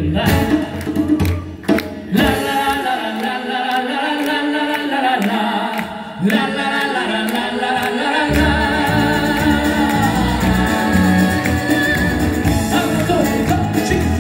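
Live band playing and singing a song: several voices over acoustic guitars, electric guitar, keyboard and a cajon. About two seconds in, the bass and percussion drop out, leaving the voices and guitars. They come back in a little after the middle.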